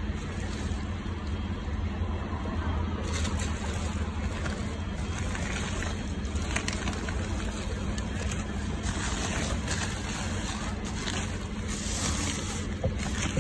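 Plastic bin bags and plastic-wrapped meat packages rustling and crinkling as they are rummaged through, busier from about three seconds in, over a steady low hum.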